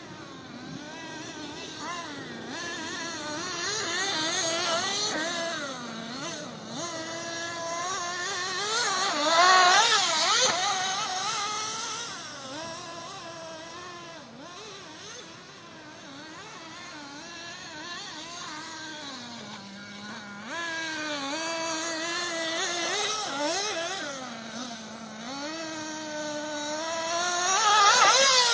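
RC buggy's motor running hard around a dirt track, its pitch rising and falling with the throttle. It is loudest as the buggy passes close, about ten seconds in and again near the end.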